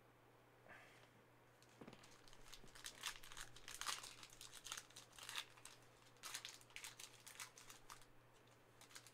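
A Panini Prizm trading-card pack's wrapper being torn open and crinkled by hand: a dense run of crackling from about two seconds in that thins out to a few crinkles near the end.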